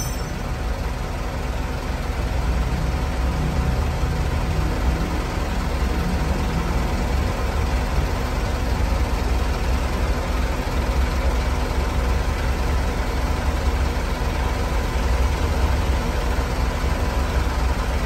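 Mitsubishi Canter truck's diesel engine idling steadily, heard inside the cab with the air conditioner running and cooling it down.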